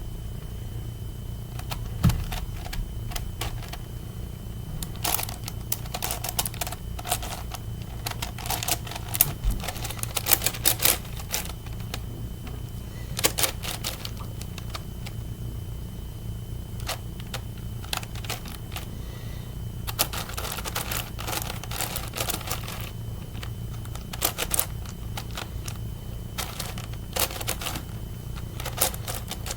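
Plastic clicks and clacks of a 9x9 Rubik's cube's layers being turned by hand in quick, irregular flurries while its edge pieces are paired up.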